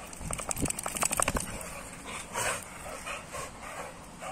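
Two pit bull–type dogs play-fighting, making short huffing and growling dog noises. A rapid flurry of short sharp sounds comes about a second in, then a few separate short noises.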